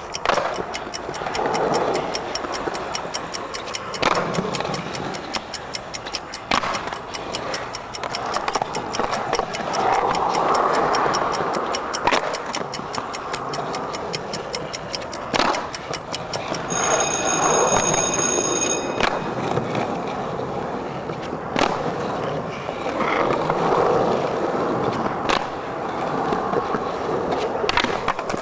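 Skateboard wheels rolling on smooth concrete, with sharp nollie pops and board landings every few seconds as the skater does repeated nollie 360 flips. An added ticking-clock sound runs underneath until a beeping alarm rings for about two seconds, marking the end of the minute; the ticking stops after it.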